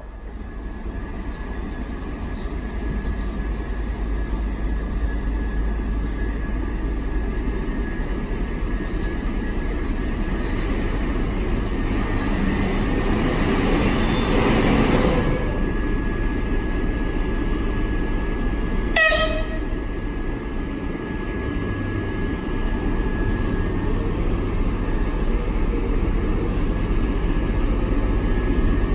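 TEP70BS diesel passenger locomotive's engine rumbling as it approaches, growing steadily louder, with a thin steady whine over it. There is a brief sharp sound about two-thirds of the way through.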